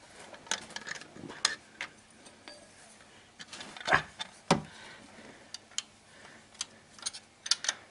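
Scattered light clicks and clinks of a wrench being handled and fitted onto the timing-belt tensioner pulley bolt of a Honda D17A engine, with a couple of duller knocks about four seconds in.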